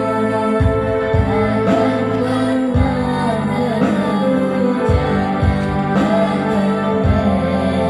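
Music: a song with a sung melody over sustained accompaniment and a bass line that moves to a new note every second or so.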